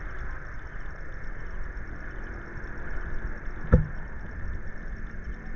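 Steady rumble and hiss of shallow sea water around someone standing in it, with a single sharp knock a little past halfway.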